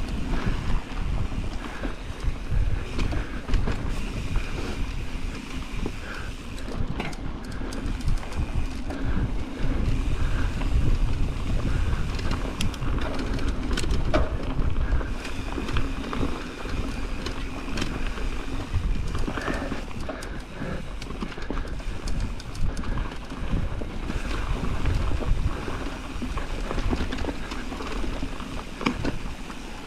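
Mountain bike riding down a dirt trail: wind buffeting the microphone over a steady rumble of tyres on dirt, with frequent clicks and knocks from the bike over bumps.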